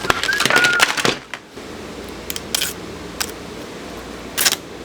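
Plastic retail packaging being pulled and torn open by hand: a dense run of crackles and clicks in the first second, then scattered sharp clicks over a steady hiss.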